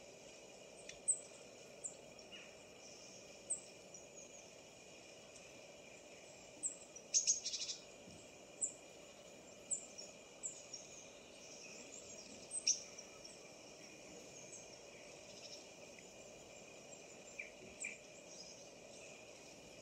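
Small songbirds chirping, played back from a bird video for cats: short high chirps every second or so at irregular intervals, with a quick run of rapid notes about seven seconds in, over a faint steady background hiss.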